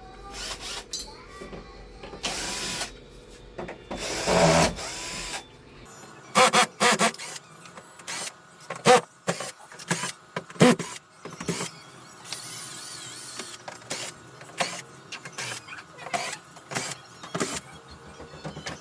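A small electric motor whirring in two short bursts, followed by a long run of sharp clicks and knocks.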